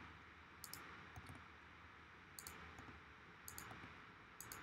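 Faint clicks of a computer mouse and keyboard, about six small scattered groups, some in quick pairs, over near-silent room tone.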